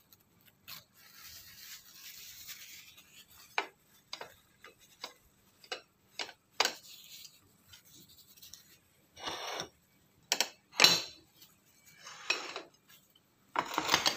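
A ceramic plate being wiped with a cloth: soft rubbing strokes, light clicks and knocks of crockery, and several short, louder scrapes in the second half.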